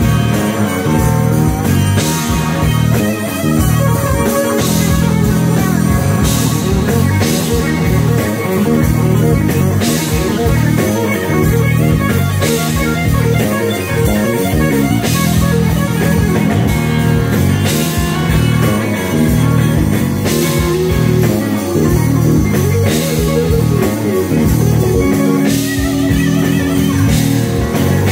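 Live blues-rock band: electric guitar played loud over drums and bass guitar, with a cymbal crash about every two and a half seconds.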